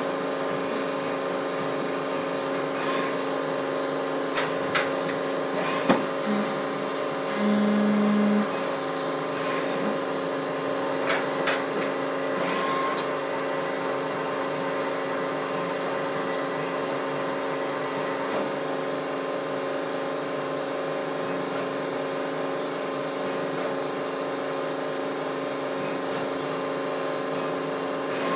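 CNC turning lathe running, a steady machine hum of several held tones. A few sharp clicks in the first half, and a short, louder low tone about seven and a half seconds in.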